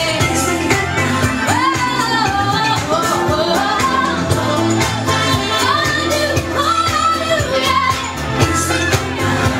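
Loud dance music with a singing voice over a steady beat.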